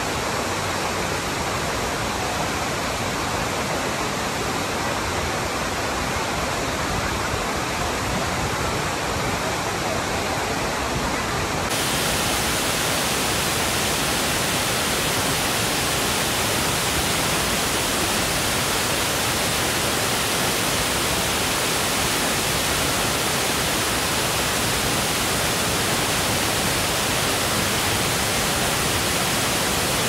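A tall waterfall, many strands of water falling down a cliff face, making a steady rushing noise. About twelve seconds in, the rush switches abruptly to a slightly louder, hissier sound.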